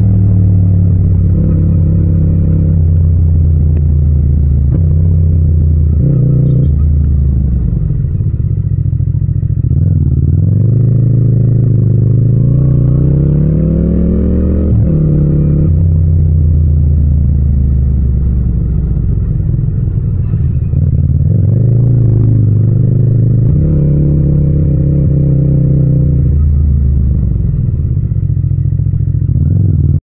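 Yamaha MT-07's 689 cc parallel-twin engine under way through town, heard close up without wind noise. Its pitch steps up and down with the throttle. A third of the way in, the revs climb steadily for about five seconds and then drop sharply.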